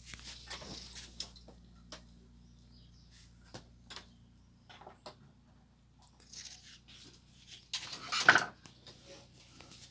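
Hands handling wires and small parts: scattered clicks, taps and short rustles, with a louder rustling clatter about eight seconds in, over a faint steady low hum.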